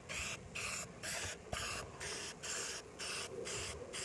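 Aerosol spray can of primer for plastics spraying in a quick series of short bursts, about ten hisses each cut off after a fraction of a second. This is the stop-and-start technique meant to save paint and give solid coverage without runs.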